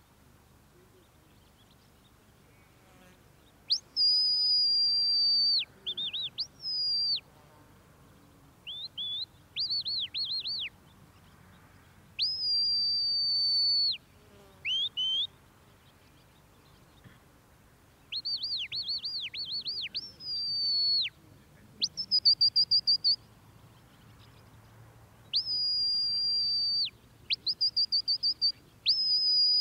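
A sheepdog handler's shepherd's whistle giving commands to a working Border Collie herding sheep. It is a string of high whistle calls: long held notes that slide up at the start and drop away at the end, alternating with quick warbling runs of short rising-and-falling notes.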